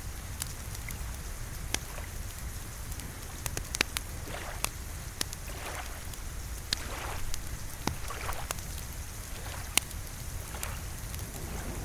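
Wood fire in a fireplace crackling, with sharp irregular pops over a steady low rumble, mixed with gentle rain.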